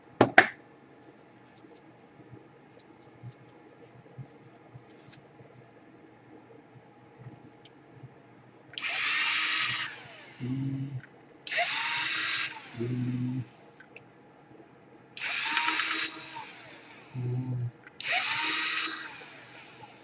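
Cordless electric screwdriver backing screws out of a laptop's motherboard and chassis: four runs of about a second each in the second half, each winding down in pitch as it stops, with shorter, lower buzzes in between. A sharp clack sounds just at the start.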